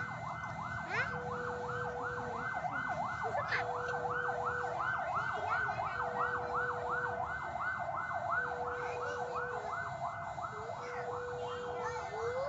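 Railway level-crossing warning alarm sounding: a rapid electronic warble repeating about four times a second, with a lower steady tone that comes and goes about every second and a half.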